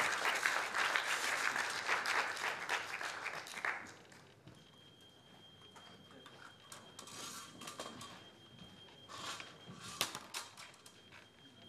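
Applause from a small audience, stopping abruptly about four seconds in. After it, low room noise with a faint steady high-pitched tone and a few soft clicks.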